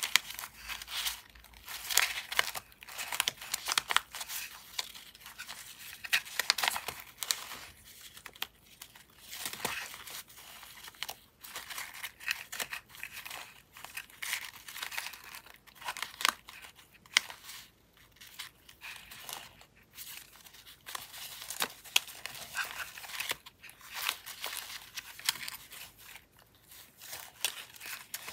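Paper scraps rustling and crinkling as they are handled and shuffled through a stuffed paper pocket, with many irregular short, sharp crackles.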